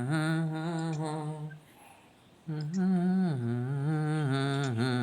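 A person humming a slow tune in a low voice, long held notes with a slight waver. It stops about one and a half seconds in and picks up again about a second later.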